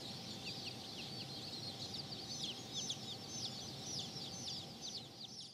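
A brood of Spitzhauben chicks peeping: many short, high, falling peeps overlapping, growing busier about two seconds in.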